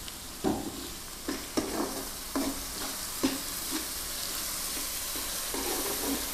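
Onion and ginger-garlic paste frying in oil with a steady sizzle, while a spoon stirs and scrapes the pot in a series of short knocks.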